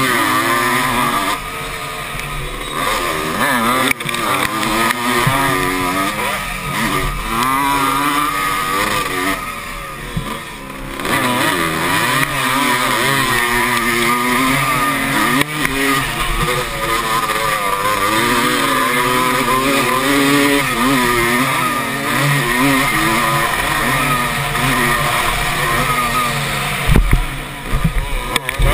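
Motocross bike engine racing on a dirt track, its pitch rising and falling constantly as the rider works the throttle and shifts gears, with the throttle briefly backed off about ten seconds in.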